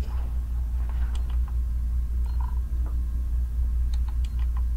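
Steady low hum, with a few faint, separate clicks from buttons being pressed on an automated phoropter's control panel.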